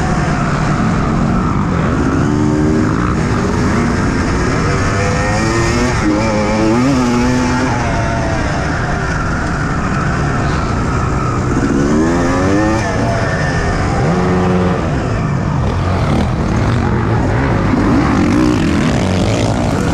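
Motocross bike engine heard from on board while riding a dirt track, revving up in repeated climbing runs through the gears and dropping back off the throttle.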